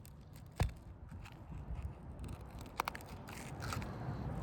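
A metal tool working on asphalt roof shingles: one sharp knock about half a second in, two quick taps near three seconds, and faint scraping over a low rumble.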